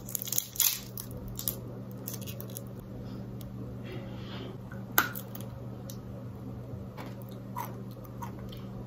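A plastic candy wrapper crinkling and tearing as it is pulled open, the crackles busiest in the first second and a half, then a few isolated soft clicks over a low steady hum.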